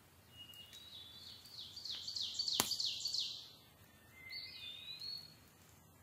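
A songbird singing in the woods: a quick run of high, down-slurred notes, then a short pause and a whistled phrase that rises and bends, over a quiet background hiss. A single sharp click cuts through the song about two and a half seconds in.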